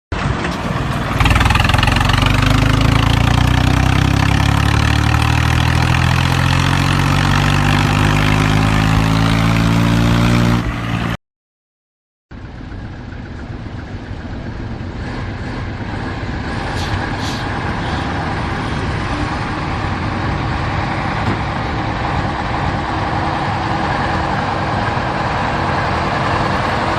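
Vehicle engine running and revving, its pitch climbing steadily for about ten seconds. It cuts off abruptly about eleven seconds in. After a second of silence a rougher engine sound starts up and slowly grows louder.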